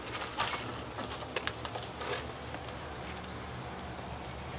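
Handling noise from a rubber steam hose being fed down through the wooden lid of the wax-melter tank: a few light scrapes and taps in the first two seconds, then only a steady low hum.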